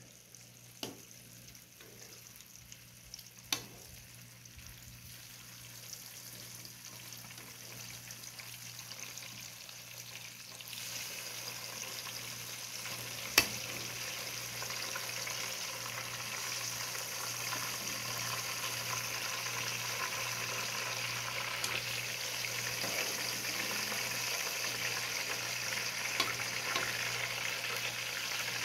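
Boiled flour dumplings (duff) frying in a pan of hot oil, the sizzle growing steadily louder as more go in. A few sharp clicks stand out, the loudest about halfway through.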